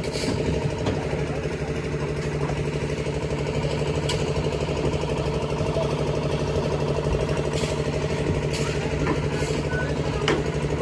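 An engine running steadily at a constant speed, with a few short knocks or clicks over it.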